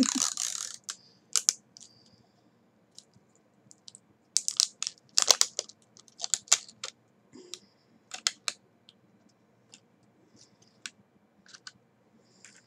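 Small plastic clicks and crinkles of a lipstick tube and its packaging being handled, scattered and irregular, with a longer rustle right at the start.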